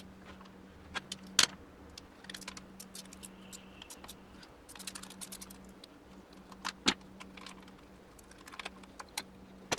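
Light metallic clicks and clinks of hand tools and bolts as the valve body is unbolted from a 700R4 automatic transmission, in scattered taps and short rattling runs, with a few sharper knocks about a second in and near seven seconds.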